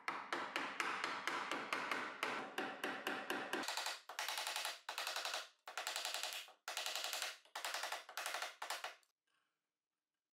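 Impact driver hammering 6x30 mm hex lag bolts into the workbench's wooden frame: one continuous run of rapid impacts for about three and a half seconds, then a series of short bursts as the bolt seats.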